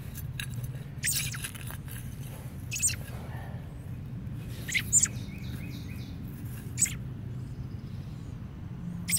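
Short, high bird chirps, about six spread a second or two apart, over a low steady hum.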